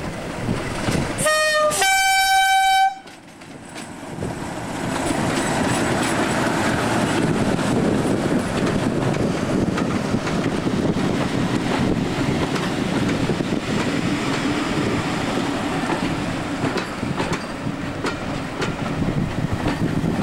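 Class 37 diesel locomotive sounding its two-tone horn about a second in: a short lower note, then a longer higher one. It then passes with its English Electric V12 engine running under load, followed by a steady rumble of coaches rolling by.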